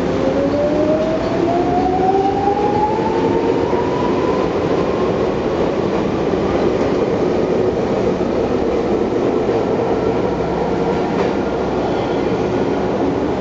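Chichibu Railway 7000 series (ex-Tokyu 8500 series) electric train pulling away from a station, its traction motor whine rising steadily in pitch as it gathers speed. The cars roll close past with a steady rail rumble, and the whine fades as the train draws away.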